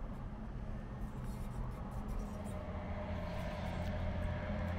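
An engine running with a steady low hum that grows louder about three seconds in.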